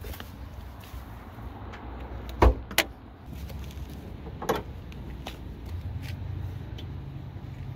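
A car door shutting with a heavy thump, a sharp click just after; about two seconds later a metallic clunk as the hood's safety catch is released and the hood lifted.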